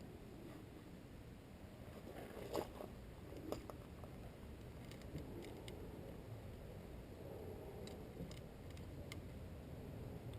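Faint, scattered clicks and light knocks of metal tool parts being handled and fitted, over a low steady hum.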